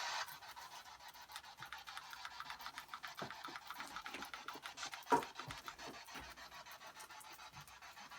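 A ghost-hunting EVP radio-sweep device (spirit box), turned down low, scanning through stations: a fast, even run of choppy static ticks and crackles, with one sharper click about five seconds in.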